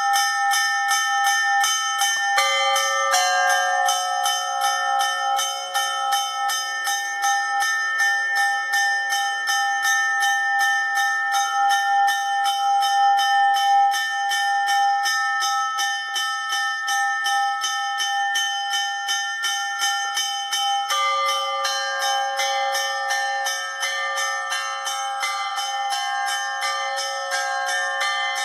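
Russian Orthodox church bells ringing: small high bells struck in a rapid, even rhythm of about three strokes a second over the ringing tones of larger bells. The combination of bells changes about two seconds in and again about twenty seconds in.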